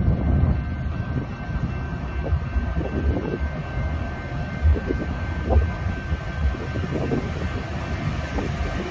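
Freight train rolling past: a steady low rumble of the cars, with irregular clunks from the wheels and couplers every second or so.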